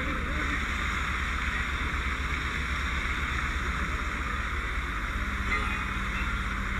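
Fire engine's engine and pump running steadily, with a rushing hiss over a low rumble. A low steady hum joins about five seconds in.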